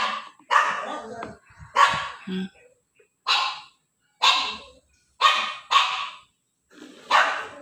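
A dog barking repeatedly: about eight short barks, irregularly spaced roughly a second apart.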